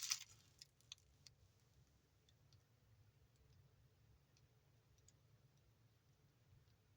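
Near silence: room tone with a low hum and a few faint, sharp clicks, most of them in the first second or so.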